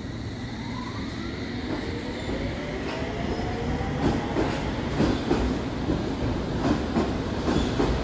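London Underground S7 Stock train pulling away from the platform: its traction motors give a whine that rises in pitch over the first few seconds. From about four seconds in the wheels start clicking and knocking over the rail joints, the sound growing louder as the train gathers speed.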